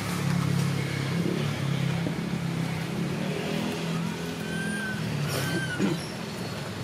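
A motor vehicle engine running steadily nearby, its low hum shifting a little in pitch, with a few short high whistles about two-thirds of the way through.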